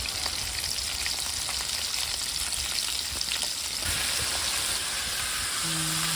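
Food sizzling and crackling in hot oil in a frying pan, a steady hiss that grows denser about four seconds in. A brief low tone sounds near the end.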